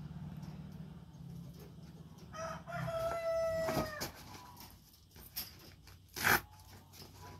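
One long animal call, held about a second and a half and dropping slightly in pitch at its end, then a single sharp clack about six seconds in.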